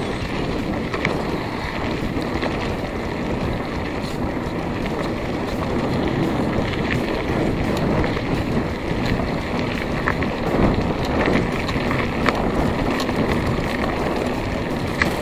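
A mountain bike rolling along a dirt track, heard through a handlebar-mounted camera: steady wind noise on the microphone and tyre rumble, with scattered small clicks and rattles from the bike over bumps.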